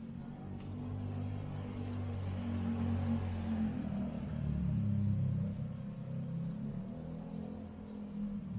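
A motor vehicle passing close by on a city street: a low engine rumble that builds over the first few seconds, peaks around the middle and eases off after about five seconds.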